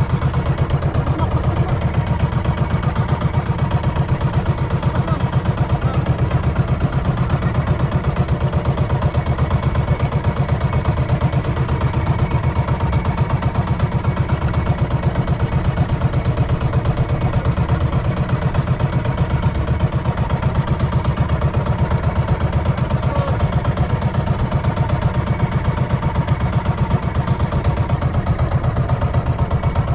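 Engine of a motorized outrigger boat running steadily under way, a fast, even, low pulsing drone that does not change.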